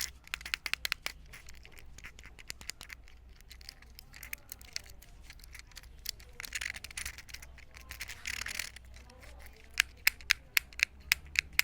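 Fidget Cube toy being worked close to the microphone: scattered small clicks and rattles, three short scratchy rubbing passages in the middle, then a quick run of about ten sharp clicks near the end.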